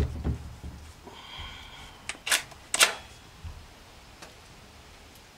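Sharp mechanical clacks of a firearm being handled: one at the start and two close together about two and a half seconds in, with a brief high ringing tone between them.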